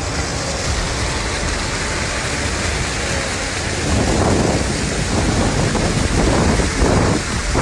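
Floodwater pouring over a roadside wall and streaming across a road, a steady rush of water mixed with rain, growing louder about halfway through.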